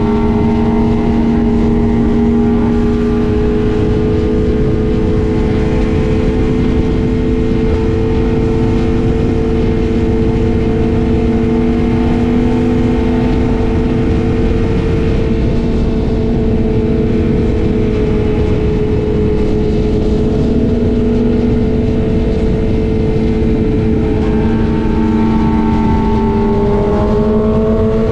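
BMW S1000RR inline-four engine running at a steady highway cruise under wind rush, its note rising near the end as the bike accelerates.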